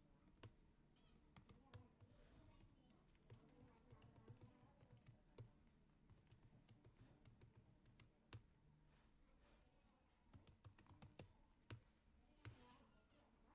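Faint computer-keyboard typing: quick, irregular key clicks in runs and pauses, as commands are entered.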